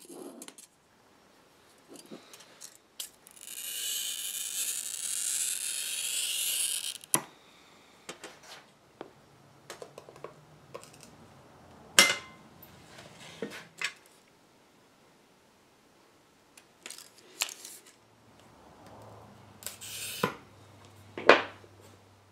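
Glass cutter scoring a pane of antique glass: a steady, scratchy hiss for about four seconds. Then sharp clicks and a loud crack as the glass is snapped along the score with running pliers, and near the end a second, shorter score followed by another snap.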